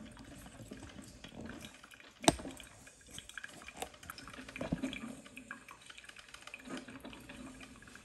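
Drip coffee maker brewing: hot water gurgling and dripping through to the filter and carafe. A single sharp click about two seconds in is the loudest sound, with a few fainter clicks later.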